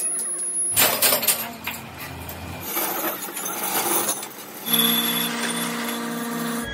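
Metalworking workshop noise in short spliced stretches: clanking and knocking of metal, then a steady hum from a running machine.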